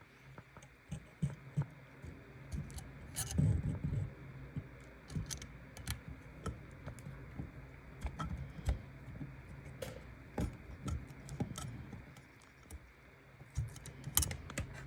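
Scattered clicks, taps and small rattles of plastic and metal parts being handled while a smoke detector is taken down or fitted, with a louder clatter about three seconds in and another near the end.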